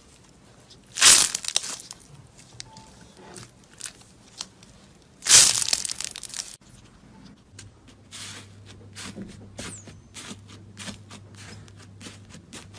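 Slime being worked by hand: two loud, drawn-out tearing sounds about one and five seconds in, then a quick string of small clicks and pops near the end.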